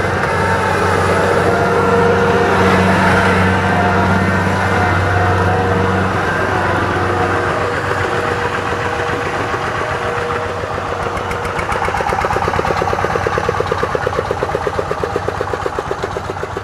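Diesel engine of a Kubota crawler combine harvester running steadily as it works through mud, with a steady low drone. About two-thirds of the way through, a fast, even chugging beat from a farm tractor's engine takes over.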